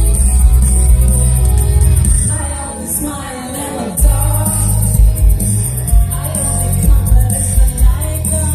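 A live rock band plays through a concert PA, heard from the crowd: electric guitar, bass and drums under a woman singing. A little over two seconds in, the band thins out to a quieter passage, then comes back in at full volume about four seconds in.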